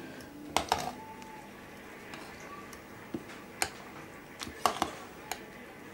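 Metal spoon and fork clinking and scraping against a metal baking tray while a baked stuffed aubergine half is lifted out; a pair of sharp clinks about half a second in and several more in the second half.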